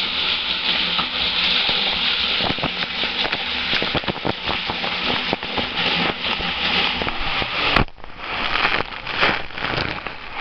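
Rushing, spraying water on a waterslide, a steady hiss with many small crackles. About eight seconds in there is a sharp click and the sound drops off suddenly, then comes back choppier as the rider goes down the slide tube.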